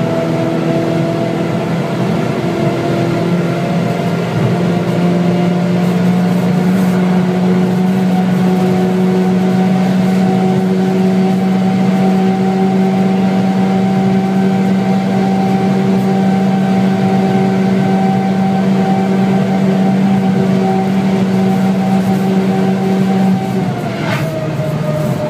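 Stage 2 tuned VW Scirocco 2.0 TSI's turbocharged four-cylinder engine heard from inside the cabin, accelerating at high speed with its pitch climbing slowly. Near the end the revs drop as the car slows, with a brief click as they fall.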